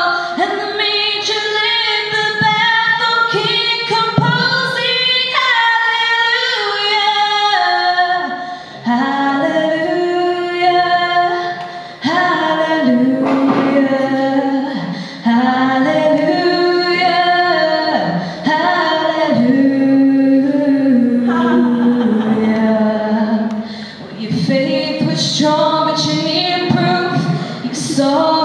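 A woman singing solo into a hand-held microphone, amplified through a PA. She holds long notes and slides through quick runs between them, pausing briefly for breath.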